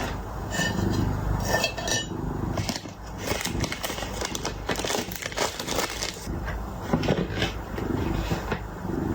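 A cat chewing and crunching food: a dense run of quick, crisp clicks and crackles. Two short high squeaks come in between about half a second and two seconds in.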